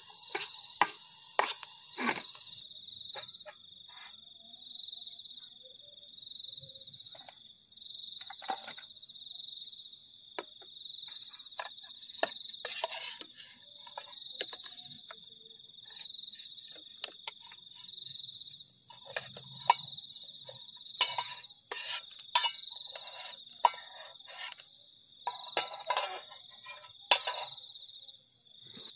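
Crickets chirring in a steady, pulsing chorus, with scattered clinks and scrapes of metal utensils against a camping cookpot, most of them in the second half.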